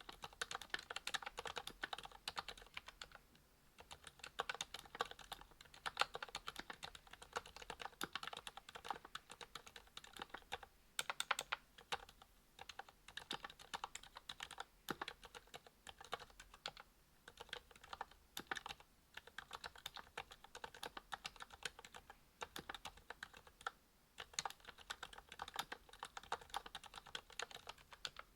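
Typing on a custom mechanical keyboard, a Monstargear XO V2 with a brass plate, fitted with lubed ZealPC Sakurios silent linear switches. It is a dense, quiet run of keystrokes, with a few short pauses.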